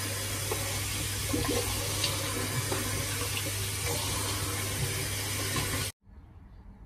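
Bathroom sink tap running steadily into the basin while a child splashes water on his face with his hands. The running water stops abruptly about six seconds in, leaving quiet room tone.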